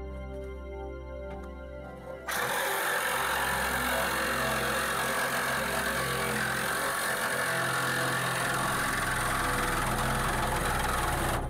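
Background music, then about two seconds in a Milwaukee Sawzall reciprocating saw starts cutting through the steel side panel of a Volkswagen T5 van: a loud, harsh, steady cutting noise over the music that cuts off just before the end.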